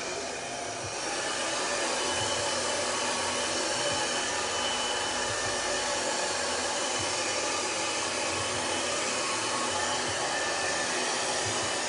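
Handheld hair dryer running steadily on high speed, low heat, blow-drying short hair; it comes up to full strength over about the first second.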